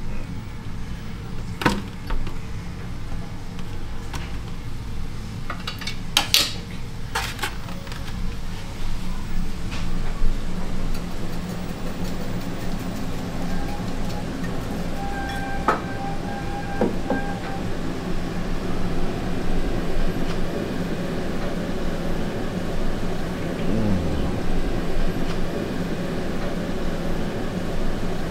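Steady mechanical hum with a few sharp clinks in the first several seconds, and a faint high tone held for a few seconds about halfway through.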